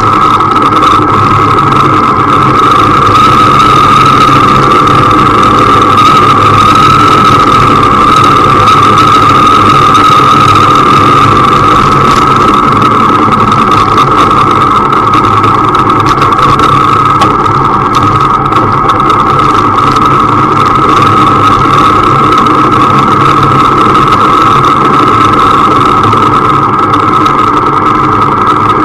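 Motorcycle engine running at a nearly steady pitch, heard through a camera mounted on the moving bike.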